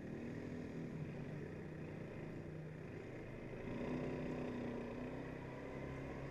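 Quad bike engine running steadily while riding along, getting louder a little past halfway.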